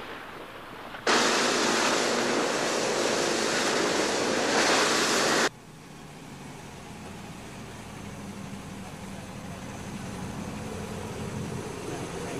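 A loud, even rushing noise cuts in about a second in and cuts off sharply some four seconds later. A low engine hum follows and slowly grows louder.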